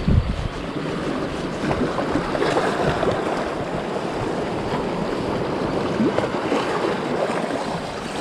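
Sea washing over the rocks, with wind buffeting the microphone, in a steady wash of noise. A short low bump comes right at the start.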